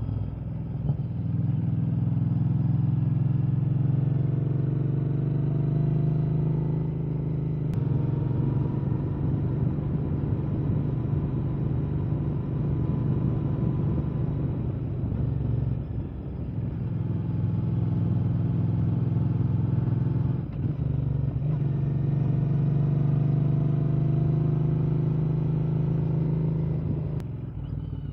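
Royal Enfield Interceptor 650's parallel-twin engine through a 2-into-1 S&S Cycle exhaust while riding. The note climbs under throttle, breaks off briefly about eight, sixteen and twenty seconds in as the throttle is eased, and falls away near the end.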